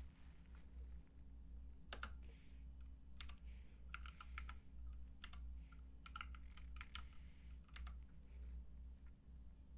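Computer keyboard typing: short runs of quick keystrokes with pauses between them, over a low steady hum.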